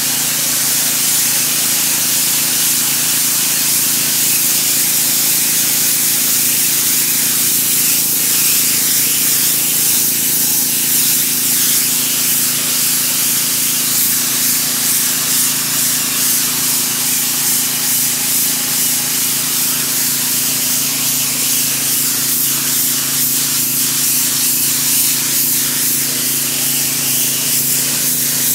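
Pressure washer jet spraying water hard against a flat surface: a loud, steady hiss with a constant low hum underneath.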